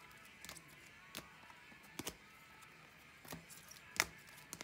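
Rigid plastic card top loaders being handled and set down on a table: a string of light clicks and taps, the sharpest about four seconds in.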